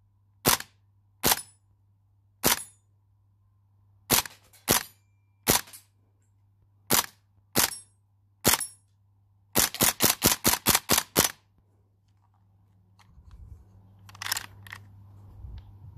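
CO2-powered airsoft M1A1 carbine firing: nine single sharp cracks at uneven intervals, then a fast string of about nine shots in under two seconds. After that come handling noises from the gun being turned over, with one louder clack near the end.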